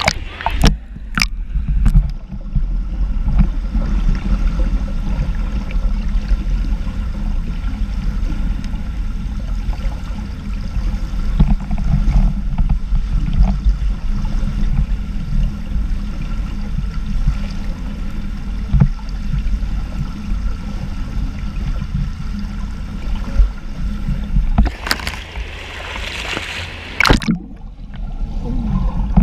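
Pool water heard through a submerged camera's housing: a steady, muffled low rumble, with a few splashes about a second in. Near the end a swimmer passes close overhead, and the stroke churns the water into a loud rush of splashing and bubbles.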